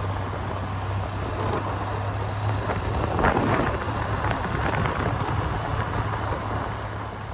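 Vehicle driving on a road: a steady low engine hum under road noise. There is a brief louder burst of noise about three seconds in.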